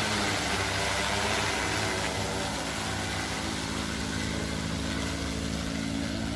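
Agricultural spraying drone's rotors running steadily: a continuous whirring hum with several steady pitches over a broad rushing noise.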